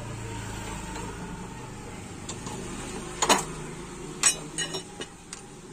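A few sharp metallic clinks and knocks, about three seconds in and again around four seconds in, as metal parts and tools are handled on a steel gas stove top, over a steady low hum.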